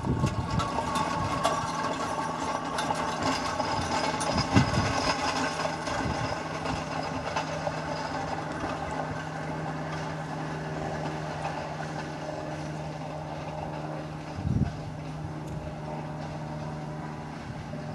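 4-8-0 steam locomotive No. 475 approaching at a distance, heard as a steady low hum with fainter higher tones. Two short low thumps come about four and a half and fourteen and a half seconds in.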